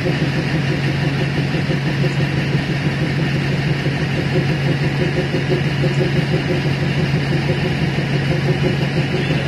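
Diesel engine of a DEMU passenger train running steadily at a low, unchanging pitch, heard from the driver's cab.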